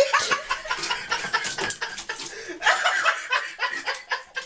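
A person laughing in short, breathy snickers.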